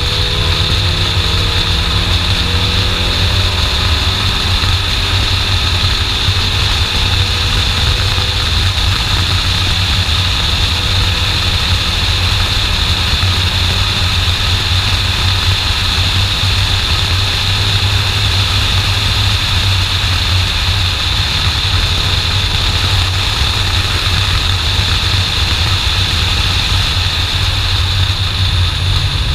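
BMW E30 318iS driving at speed with its 1.8-litre four-cylinder engine running, heard through a bonnet-mounted camera with heavy wind rumble on the microphone. The sound is steady throughout.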